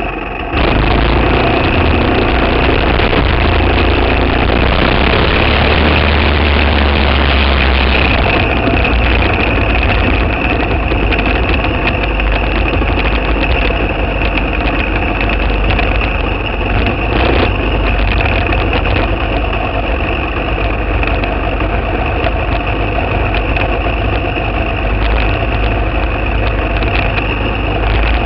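Briggs & Stratton Animal single-cylinder four-stroke kart engine, heard from on board the kart, getting louder sharply about half a second in and then running hard at racing speed.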